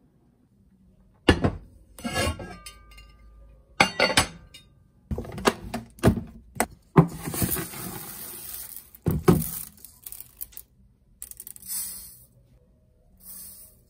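Knocks and clatter of a rice bin and a wooden measuring cup, with dry rice grains pouring in a rattling hiss into an enamelled cast-iron pot.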